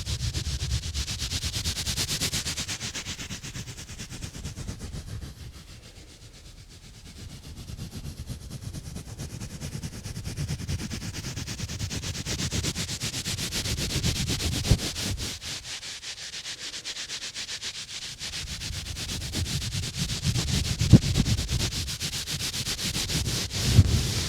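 Exfoliating gloves rubbing and scratching close around a microphone: a scratchy, brushing noise that swells and fades in waves, easing off twice, with low rumbling handling thumps, sharpest near the end.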